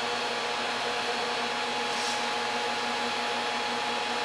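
A DIY 10 kW resonant-lock induction heater running while it heats an iron billet: a steady, even hiss with a steady hum of several tones beneath it.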